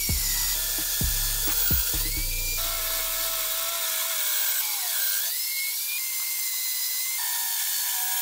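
Magnetic base drill running an annular cutter through steel plate, with background music over it.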